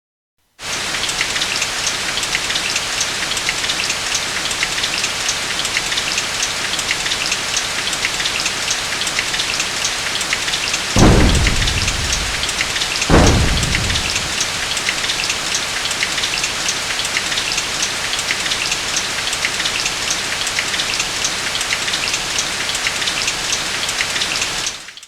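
Heavy, steady rain with two claps of thunder about two seconds apart near the middle, each rumbling away over about a second. The rain cuts in suddenly at the start and stops suddenly just before the end.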